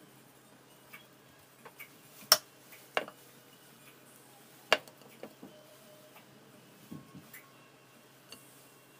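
Scattered sharp clicks and taps of a plastic rice paddle against a stainless steel tray and bamboo rolling mat as sushi rice is spread on nori, the three loudest a little past two, at three and near five seconds in.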